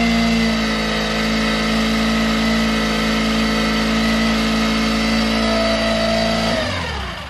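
Mercury 9.9 hp four-stroke outboard kicker motor running at a steady high idle, then slowing and stalling near the end. The motor dies as soon as the choke is pushed in, a fault that a cleaned spark plug has not cured.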